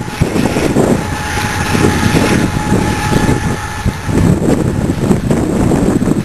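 Loaded coal freight train rumbling along the rails as it moves away, with heavy wind buffeting on the microphone. A steady high-pitched tone sounds through the first few seconds, then stops.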